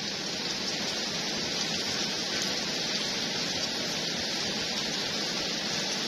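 Steady rain falling, an even hiss with no separate drops or gusts standing out.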